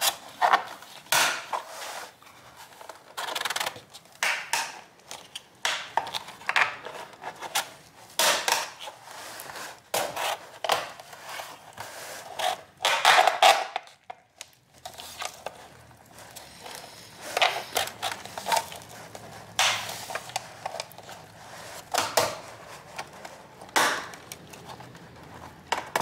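Plastic pry pick worked along the seam of an HP 22fw monitor's plastic back cover, with irregular clicking, creaking and scraping as the snap-fit clips are forced. The loudest clicks come about halfway through.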